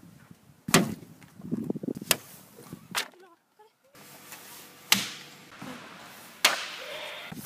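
About five sharp slaps and knocks spread a second or two apart, with crackling paper and handling noise between them, as a paper sign is handled and pressed against wooden doors.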